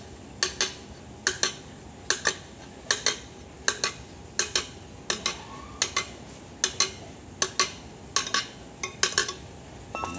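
Metal being hammered: the end of a pipe beating a steel oil filter casing to dish it concave for a homemade exhaust baffle. Sharp metallic strikes, mostly in quick double blows, about one pair every 0.8 seconds.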